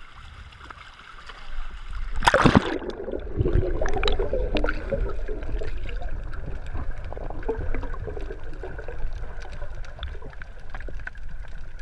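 A splash about two seconds in as the camera goes under the sea surface. After it comes the muffled underwater sound of seawater moving around the camera housing: a steady low rumble with scattered faint ticks.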